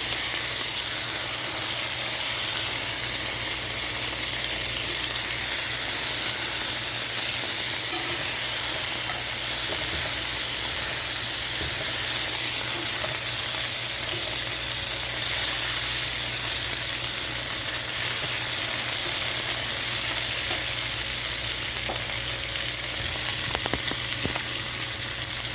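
Bacon slices frying in a pan, a steady sizzle with scattered pops of spitting fat, a few sharper near the end.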